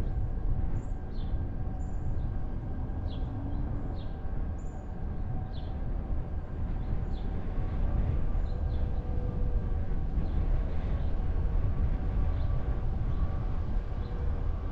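Car driving: steady low road and engine noise, with faint short high chirps during the first six seconds or so.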